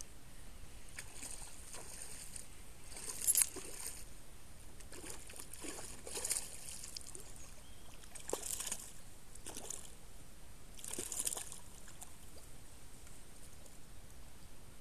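A soft swimbait lure being retrieved through shallow water: several short bursts of splashing and swishing, the loudest about three seconds in.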